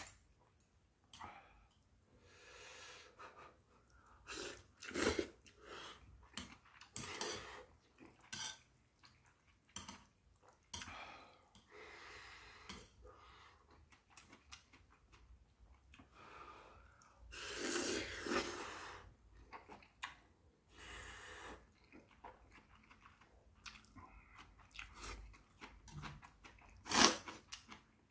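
Close mouth sounds of a person eating ramyeon noodles: irregular slurping and chewing.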